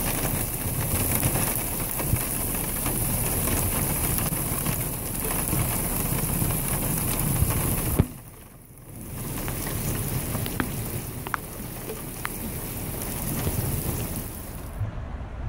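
Hail and rain falling on wet sandy ground: a dense hiss of many small ticks. It drops away briefly about eight seconds in, then comes back softer with scattered ticks.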